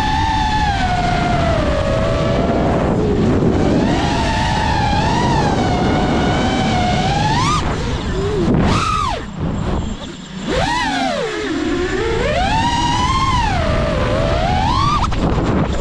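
FPV freestyle quadcopter's brushless motors whining, the pitch rising and falling constantly with the throttle. About nine seconds in the whine briefly drops away and quietens, then sweeps sharply back up.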